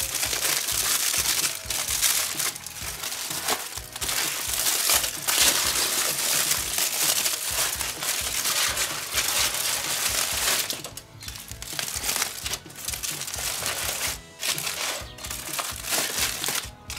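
Aluminium foil being unwrapped by hand from a wrapped brisket, crinkling and rustling continuously, with short let-ups a little past the middle and near the end.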